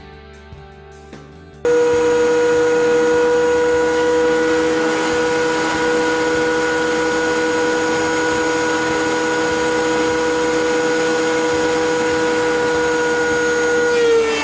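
Electric power tool motor running with a loud, steady whine that starts abruptly, after a brief bit of quiet guitar music. Its pitch dips slightly near the end.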